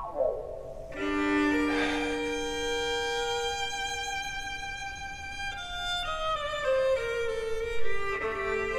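Background score led by a violin: long held notes from about a second in, then a melody stepping down in pitch through the second half.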